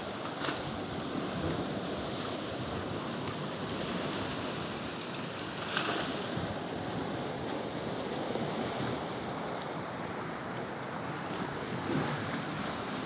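Sea waves washing against a rocky shore, with wind blowing on the microphone. Two brief louder rustles stand out, one near the start and one about halfway through.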